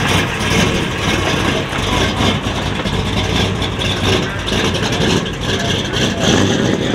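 A car engine idling steadily under the general chatter of a crowd.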